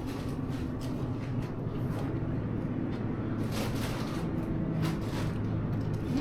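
Supermarket background noise in a refrigerated dairy aisle: a steady low hum, with a few faint knocks and a brief rustle about halfway through.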